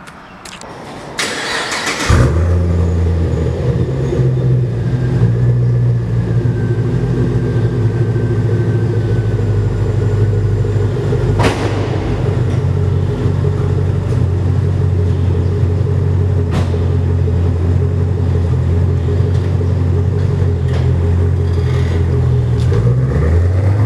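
Pontiac G8 GT's 6.0-litre V8 cranked by the starter for about a second, catching about two seconds in and settling into a steady idle on its fresh oil. Two sharp clicks sound midway, and near the end the engine speed dips and then rises.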